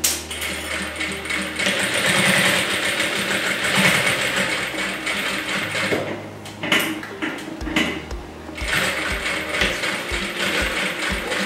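Straight-stitch sewing machine stitching through synthetic leather, running in stretches with a couple of short pauses, over background music.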